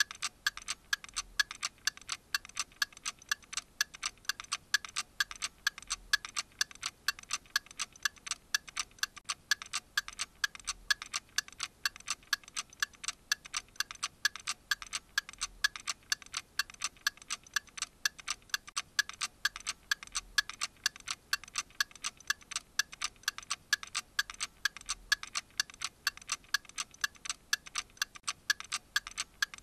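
Clock ticking: a fast, even stream of sharp ticks.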